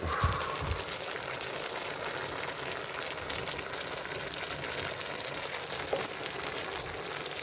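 Cast-iron potjie pot of vegetables sizzling steadily over a wood fire, with a couple of low soft thuds at the start.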